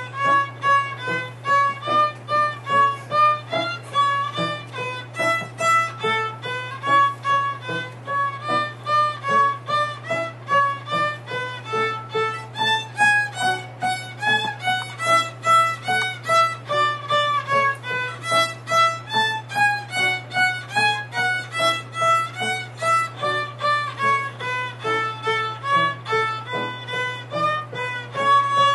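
Child playing a small violin, a tune of separate bowed notes at about two a second.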